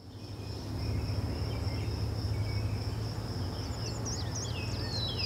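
A steady high-pitched insect-like trill over a low steady hum, fading in at the start, with a few quick falling chirps near the end.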